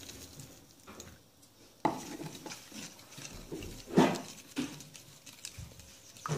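Water pouring briefly into a small plastic tub, then a wooden stick stirring and scraping against the plastic with irregular knocks, the loudest about four seconds in.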